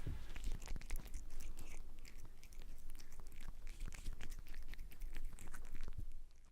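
Irregular wet chewing and crunching, a rapid run of small clicks and crackles that dies away just before the end.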